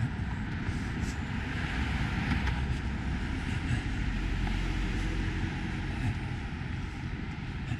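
Cars driving past on a city street, a steady wash of engine and tyre noise that grows louder through the middle.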